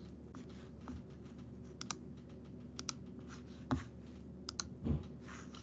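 Scattered computer keyboard and mouse clicks, a few single taps and quick double clicks spaced a second or so apart, over a faint steady hum.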